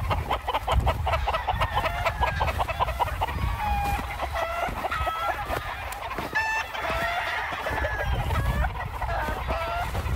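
Many gamecock roosters crowing and clucking, with calls overlapping one another throughout.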